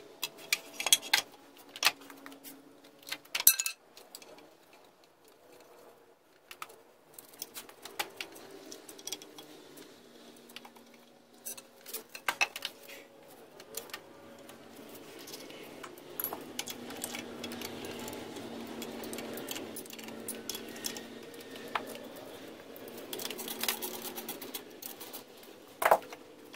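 Metal clinks, clatter and sharp knocks of hand tools and bolts as the lower unit of a 40 HP Evinrude outboard is unbolted and worked off. A faint steady hum runs through the middle of the stretch.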